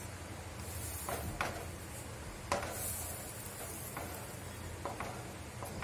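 A wet hand patting and rubbing water over a jowar bhakri on a hot tawa: soft, quiet swishes and light pats, with a faint hiss now and then as the water meets the hot dough. A faint steady low hum runs underneath.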